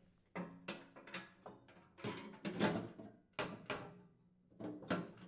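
Ariens snowblower auger and impeller assembly knocking and clunking against the steel blower housing as it is worked into place, about a dozen irregular metal knocks, each ringing briefly.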